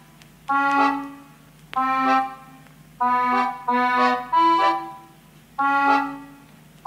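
Background music: a slow melody of held notes, each starting sharply and fading away.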